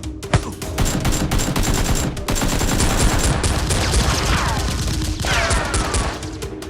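Rapid, continuous gunfire of a Nerf gun battle, many shots a second like automatic fire, with a falling whistle twice in the second half.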